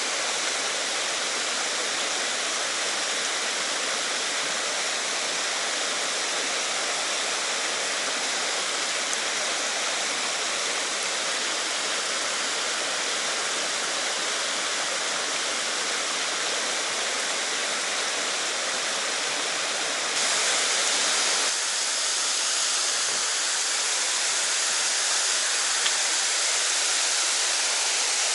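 Steady rushing water of a mountain headwater stream. About twenty seconds in the rush turns suddenly louder and hissier.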